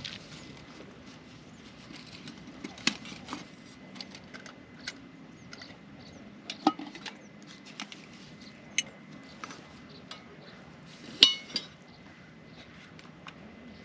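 Metal camp cookware being handled while a camp stove and pot are set up: scattered clinks and knocks, the loudest a sharp metallic clink about eleven seconds in that rings briefly.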